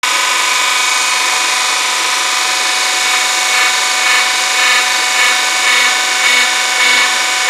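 Hydraulic press's pump running with a steady whine of several tones while the ram forces a round punch down into a steel plate over a die. From about halfway through, a pulsing beat nearly twice a second comes in over the whine.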